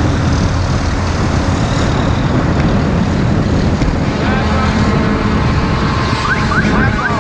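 Busy road traffic: vehicle engines running with a steady rumble and road noise, and voices faint underneath. Near the end comes a quick run of short rising chirps.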